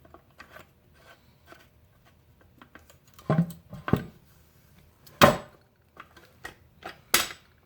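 Light metal clicks, then a few sharp metal clunks, as a lever is worked on a Farmall H Lift-All hydraulic pump in its reservoir to test that the pump trips. The loudest clunk comes a little past the middle, and another follows near the end.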